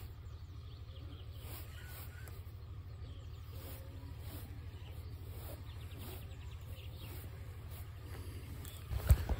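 Outdoor ambience: a steady low rumble with faint birdsong. A loud knock comes twice just before the end.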